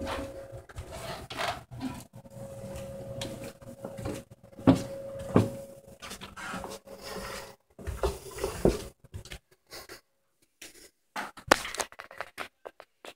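Irregular thumps and knocks of someone walking with a handheld phone, the loudest two about five seconds in, over a steady faint hum that stops about halfway through.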